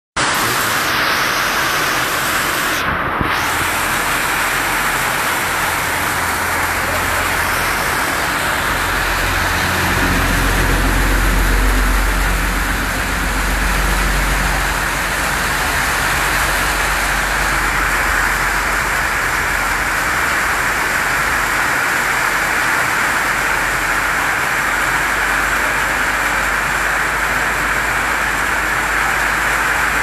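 Heavy rain drumming steadily on a corrugated metal roof, an even hiss throughout. A low rumble swells and fades between about ten and fifteen seconds in.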